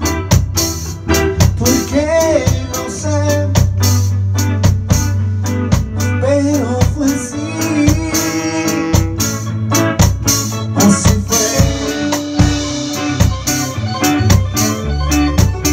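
Small band playing reggae live: drum kit on a steady beat, electric and acoustic guitars, electronic keyboard and a saxophone melody over a deep bass part.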